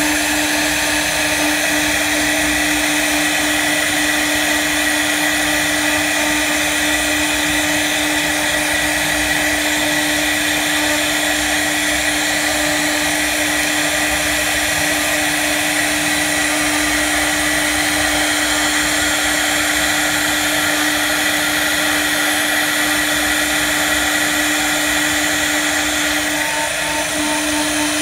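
VRW1325 CNC wood router's spindle running with a steady whine while its bit carves a relief pattern into wooden boards, with the hiss of the cutter in the wood. It eases slightly for a moment near the end.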